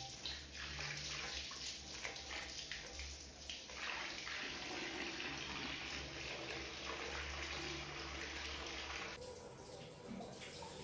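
Water running steadily, with a sudden change to a slightly quieter sound about nine seconds in.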